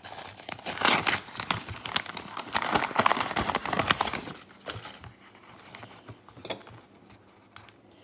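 Packaging being crinkled and torn open by hand, a dense run of crackling for a few seconds that thins out to scattered light rustles and ticks.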